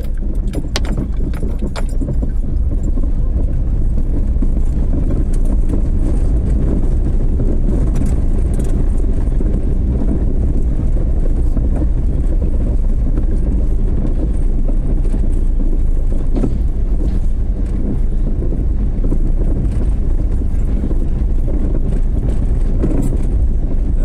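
Car driving on the road: a steady low rumble of engine and tyre noise, with a few light clicks in the first couple of seconds.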